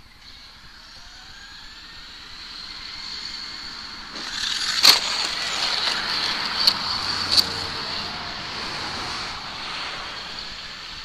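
Traxxas Slash 2WD electric RC truck driving, its motor and drivetrain giving a steady high whine that grows louder about four seconds in as it comes close. Three sharp knocks, about five seconds in and twice more about two seconds later, as it lands its jumps on the mulch pile.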